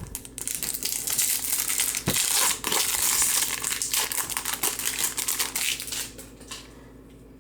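Foil trading-card pack wrapper crinkling as it is handled and opened, a dense rustle with small crackles that dies away near the end.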